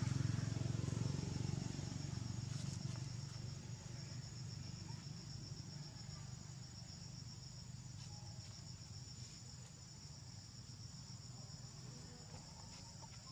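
A steady chorus of insects chirring, a high, rapidly pulsing trill that keeps on throughout. A low rumble is loudest at the start and fades away over the first few seconds.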